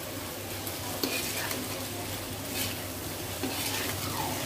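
Steel spatula stirring and tossing vermicelli with vegetables in a metal kadai, the spatula scraping the pan now and then, over a steady sizzle of frying.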